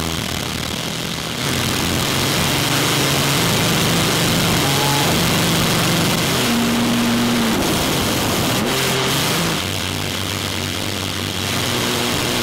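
Small 3D-printed ceramic rocket engine firing: a loud, steady hissing roar that holds for the whole stretch.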